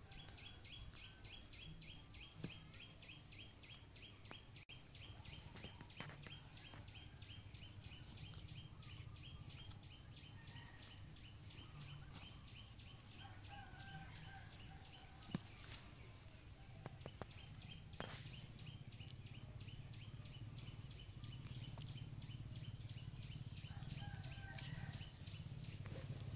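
Quiet outdoor background: a fast, high-pitched chirping, many pulses a second, runs through the first half or more and then fades. Under it is a low steady rumble that grows louder toward the end, and a few short calls are heard.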